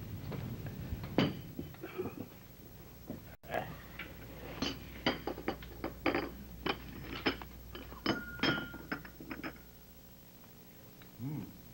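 China teacups and saucers clinking on a table: a run of sharp clinks with short ringing, busiest in the middle and tailing off near the end.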